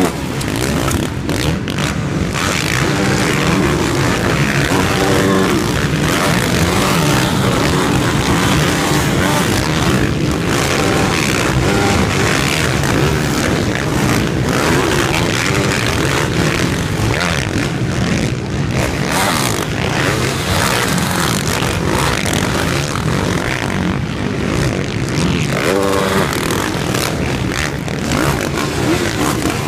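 Pack of 450cc motocross bikes racing past over a jump, engines revving up and dropping off as riders launch and land, one bike after another in an unbroken wall of engine noise.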